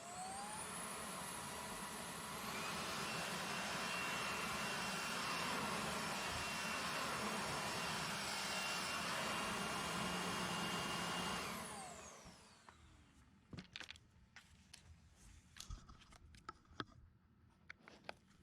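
Panasonic cordless stick vacuum cleaner running. Its motor whine rises as it spins up and steps higher and louder after a couple of seconds. It then runs steadily for about nine seconds before winding down with a falling whine. A scatter of light clicks and taps follows.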